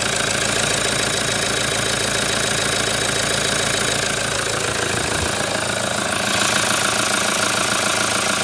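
Toyota Hilux 3.0-litre D-4D four-cylinder turbo-diesel engine idling steadily, a little louder from about six seconds in.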